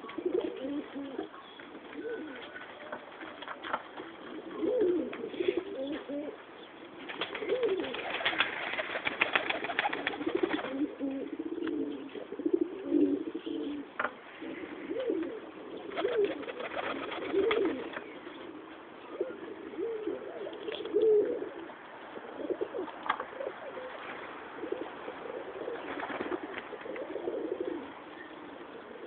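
Several domestic tumbler pigeons cooing over one another in steady, overlapping calls. Two longer stretches of rustling noise come in, about a third of the way through and again past the middle.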